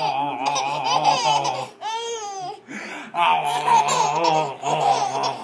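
Baby laughing hard in quick, pulsing belly laughs, with one high rising-and-falling squeal about two seconds in.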